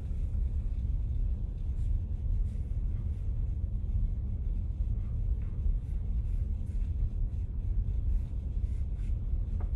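A steady low rumble, with faint scratches of a charcoal stick drawing short strokes on paper.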